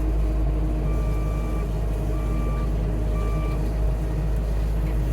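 Skid steer engine running steadily while its backup alarm beeps three times, even-pitched beeps about two-thirds of a second long: the machine is reversing.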